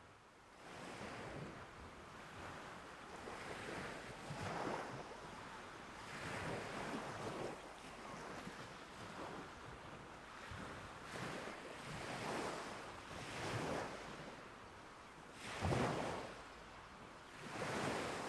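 Ocean surf washing in: a continuous hiss of waves that swells and eases every second or two, with two bigger surges near the end.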